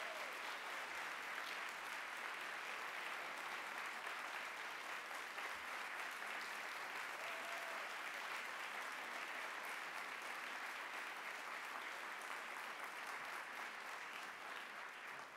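Audience applauding steadily after a keynote address, the clapping dying away near the end.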